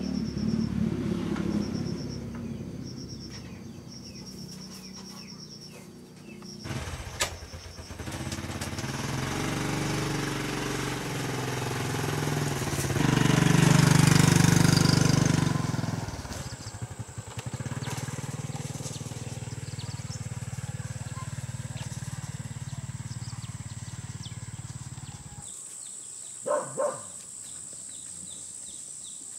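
Small step-through motorbike engine running, then pulling away and passing close by about halfway through, loudest as it goes by before fading to a steady distant hum. Near the end, a steady high insect drone with a couple of short calls.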